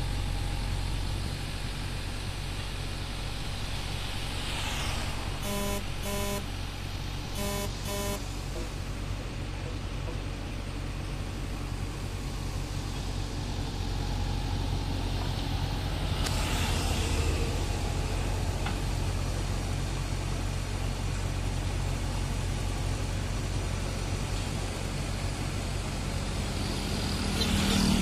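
JCB 3DX backhoe loader's diesel engine running steadily, rising louder near the end. Road traffic passes twice, and a vehicle horn gives two pairs of short toots about six to eight seconds in.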